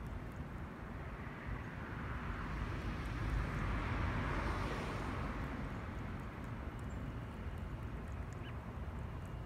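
Cat lapping water from a bowl, with faint small ticks, under a steady low rumble and a hiss that swells and fades, loudest about halfway through.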